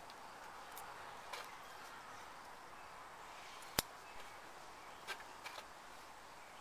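Soft handling sounds of cotton wick being coiled by hand into a metal tin, with a few light ticks and one sharp click a little before the middle.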